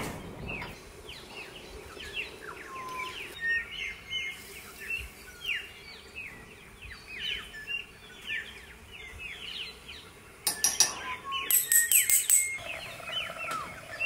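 Many birds chirping, a steady stream of short calls that sweep quickly downward in pitch. Between about 10 and 12 seconds in there is a louder run of sharp clicks and rattles.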